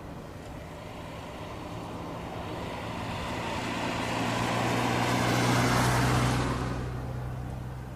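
Dassault Falcon 50's three turbofan engines growing louder as the jet comes in to land. The sound is loudest about six seconds in, then drops away quickly as the jet passes.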